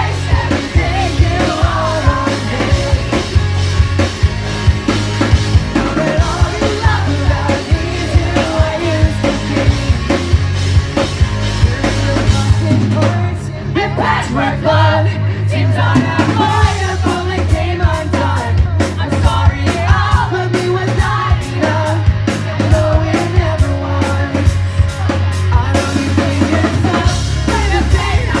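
Live rock band playing through a PA: drum kit, bass and guitar with a singer, loud and continuous.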